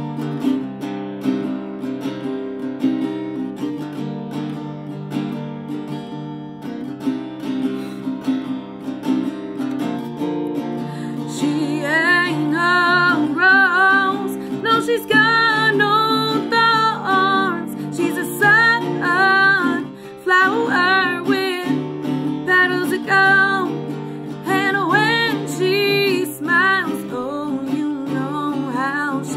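Acoustic guitar strummed in a blues song; after about eleven seconds of guitar alone, a woman's singing voice comes in over it.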